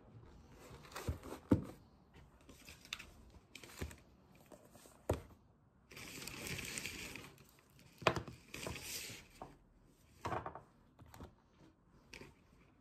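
Shopping being set down on a wooden benchtop: several sharp knocks as a boxed set of glass tumblers, drawing books and other items are put down, with rustling of paper and packaging in between.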